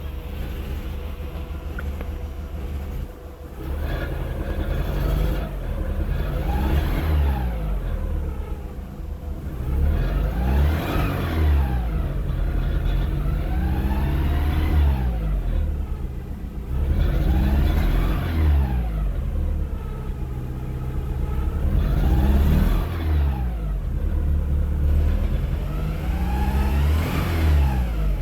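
VW Mk4 1.6 SR petrol engine idling, then revved up and let fall back about six times. The owner hears a weird noise in it that he suspects may be a bearing knock.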